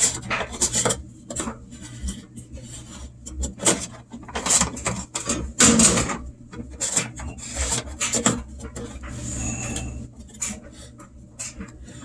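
Washing machine drain-pump filter being screwed back into its housing: irregular scraping and rubbing strokes of plastic on plastic, with scattered clicks.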